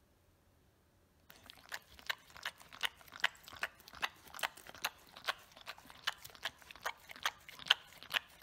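A dog eating from a plastic lid: quick wet smacks and chewing clicks, about two or three a second, starting about a second in.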